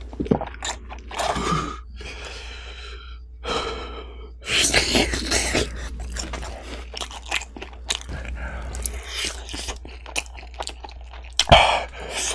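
Close-miked eating of crispy fried chicken coated in spicy red sauce: crackly bites and wet chewing, loudest about four and a half seconds in. In the first few seconds there is a pained, drawn-out vocal moan from the spice heat.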